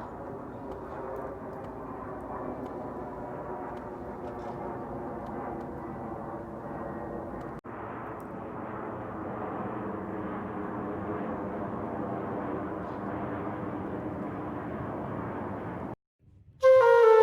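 Boeing 737 jet on landing approach flying over, its engines giving a steady rushing drone with a few whining tones. The sound drops out briefly about halfway through, then cuts off near the end, and loud music starts.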